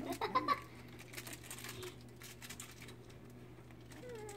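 Vizsla puppies moving about on a blanket and toys: light scrabbling and pattering of paws and claws, with a few short pitched cries in the first moment and a brief falling whine near the end.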